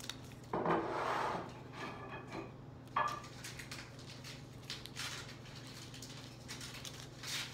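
Taped paper crinkling and rustling as it is handled and trimmed with scissors, loudest for about a second near the start. A sharp click comes about three seconds in, followed by small scattered ticks and taps on the table, over a steady low hum.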